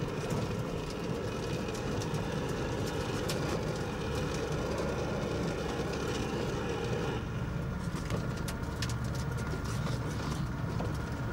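Car cabin noise while driving: a steady engine and road rumble, with scattered ticks and rattles in the second half.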